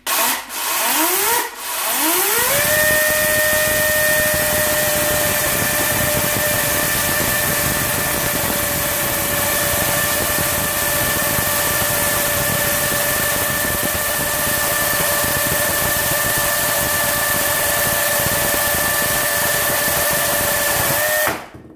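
Florabest 40V cordless chainsaw's brushless electric motor is triggered briefly a couple of times, then spins up into a steady high whine over a hiss as the chain cuts through a log. It stops sharply near the end.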